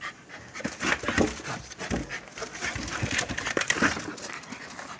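Welsh corgi panting as she mouths and nudges a soccer ball across concrete, with irregular scuffs and knocks.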